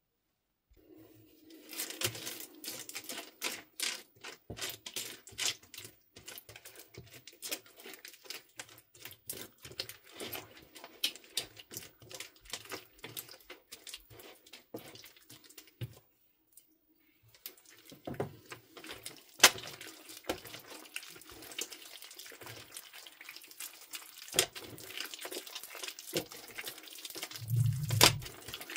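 Freshly activated slime full of plastic and foam beads being stirred and then squeezed by hand: wet squelching with many quick sharp clicks and crackles. It stops briefly about halfway through, and a low thud comes near the end.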